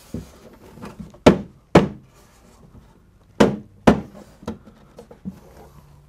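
Rubber mallet tapping a sheet of drywall held against stud framing: two pairs of sharp knocks about half a second apart, with a few lighter taps between them. The taps press marker points on the electrical boxes into the back of the panel to mark the cutouts.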